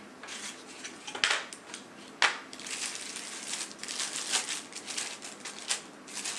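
Product packaging being handled: two sharp knocks, then a continuous crinkling, crackling rustle of wrapping being pulled open.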